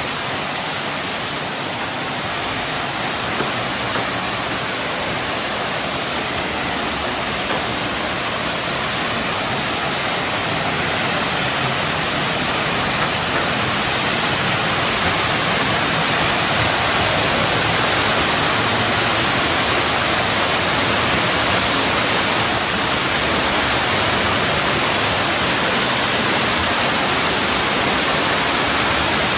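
Cave Creek's waterfall plunging through the basalt arch of the Natural Bridge: a steady, unbroken rush of falling water that grows gradually a little louder.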